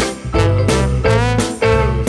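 Background music: an upbeat swing-style tune with a steady beat and plucked instrument notes.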